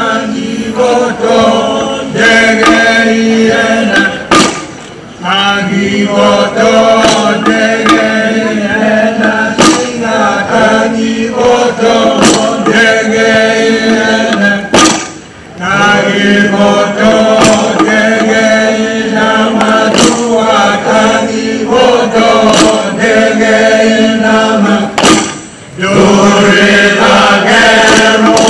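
Group of men chanting in unison in a traditional Fijian ceremonial chant, held notes in long phrases with short breaks about every ten seconds.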